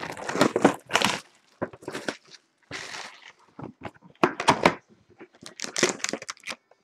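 A cardboard trading-card hobby box being opened and its packs handled: irregular crackling, rustling and sharp clicks of cardboard and wrapping.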